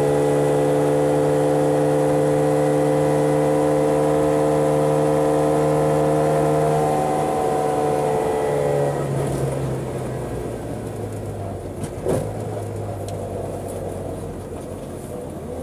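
Subaru 360's small two-stroke two-cylinder engine running at steady revs, then about two-thirds of the way through the note drops to a lower, quieter running as the throttle is eased off. A single sharp click sounds near the end.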